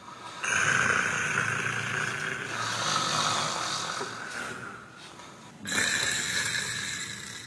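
Someone snoring: one long, noisy snoring breath lasting about five seconds, then a second, shorter one starting near the end.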